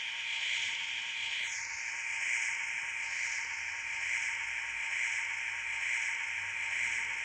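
CNC vertical machining centre running: a steady hiss with a faint steady whine underneath.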